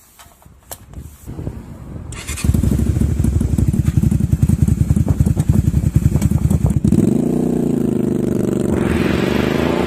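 Honda V-Twin Magna 250's V-twin engine idling with a fast, uneven low pulse, loud from about two and a half seconds in. About seven seconds in it gives way to music with steady gliding tones.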